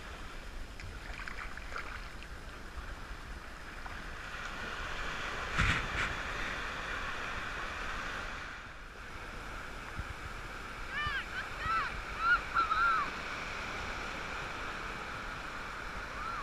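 Gentle surf washing onto a sandy beach as a steady hiss, with a single sudden thump about five and a half seconds in and a quick string of short, high chirping cries about two thirds of the way through.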